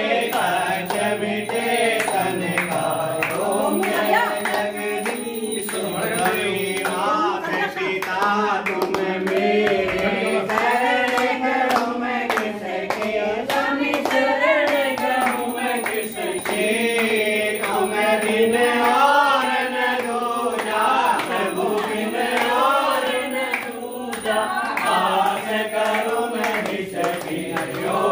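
A group of people singing a Hindu aarti hymn together in unison, with hand clapping and clicks.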